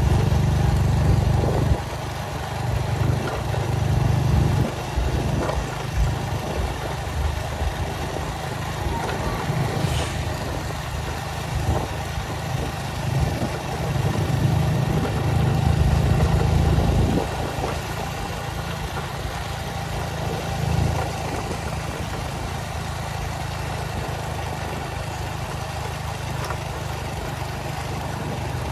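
A vehicle engine running, a steady low rumble that swells and dips.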